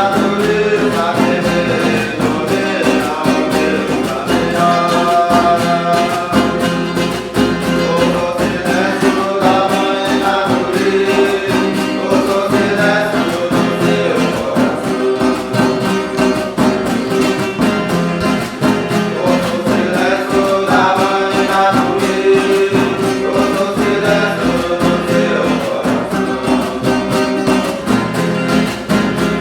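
Huni Kuin chant sung to a steadily strummed acoustic guitar.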